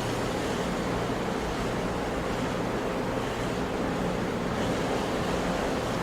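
Sea waves: a steady rush of surf whose hiss swells gently now and then, over a faint low steady hum.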